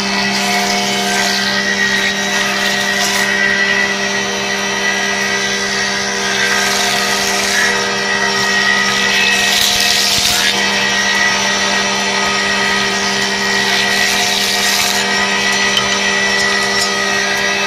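Wooden paint-brush-handle sanding machine running: a steady motor hum with a high whine over it, and a rushing sanding hiss that grows louder and fades every few seconds as handles go through the rollers.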